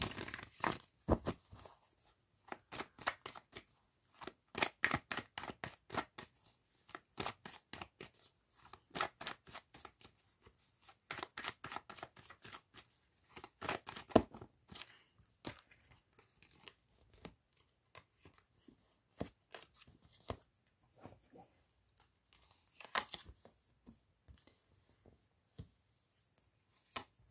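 A tarot deck being shuffled by hand: runs of quick card clicks with short pauses between them, thinning out in the last few seconds.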